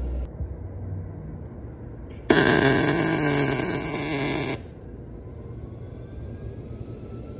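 Wire-feed (MIG) welder arc crackling in one continuous burst of a little over two seconds, which starts and stops abruptly, as a nut is plug-welded through a hole in the wall of a steel tube. Before and after the burst there is a low steady rumble.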